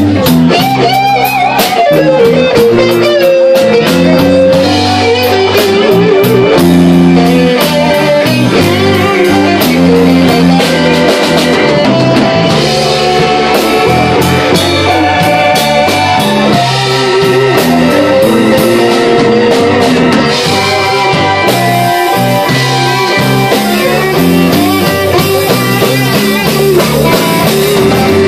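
Live blues band playing loud: an electric guitar lead with bent, wavering notes over bass and drums.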